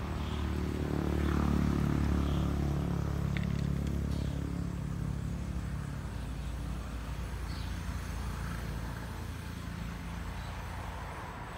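A motor vehicle's engine running with a low, even hum that swells about a second in and then slowly fades away.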